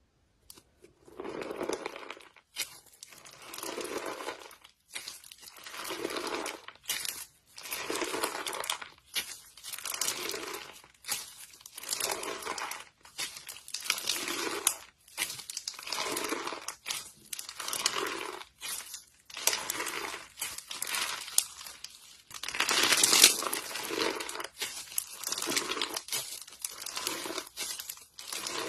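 Slime being squeezed and stretched by hand in repeated bursts about every two seconds, each burst a dense run of small clicks and pops.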